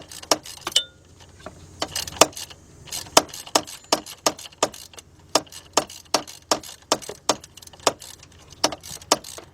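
3/8-inch drive ratchet with a 15 mm socket clicking rapidly, about four to five sharp clicks a second, as it backs out the belt tensioner's mounting bolt, with a brief pause about a second in.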